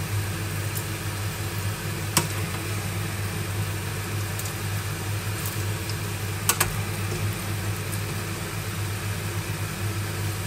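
A steady low hum from a running kitchen appliance, with a few sharp knocks of a serving spoon against stainless steel pots as cooked farfalle is scooped from one pot into the sauce. There is one knock about two seconds in and a quick pair about six and a half seconds in.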